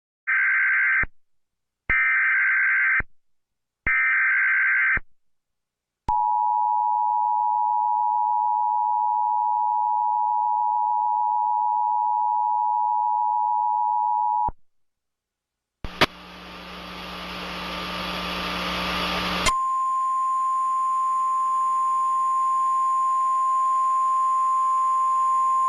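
Emergency Alert System tones: three short bursts of warbling digital data (SAME header) tones about a second apart, then the two-tone EAS attention signal held steady for about eight seconds. After a short gap, a loud burst of static-like noise is followed by a steady single tone.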